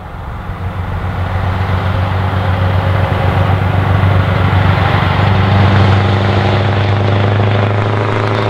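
Scania R164L 480 truck's V8 diesel on straight pipes running at steady revs, a deep even note growing louder as the truck approaches.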